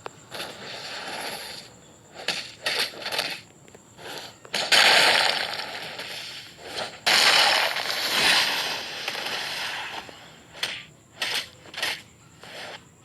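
Fingers rubbing and scratching close to the microphone, making rough crackling scrapes: a few short strokes, then two long, loud rubs in the middle, then more short strokes near the end.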